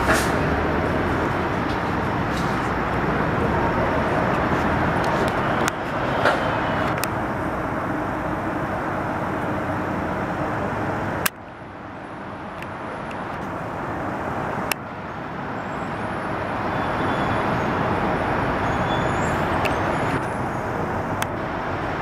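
TMC RTS transit bus running, with a steady vehicle drone. The sound drops suddenly about eleven seconds in, then grows steadily louder again.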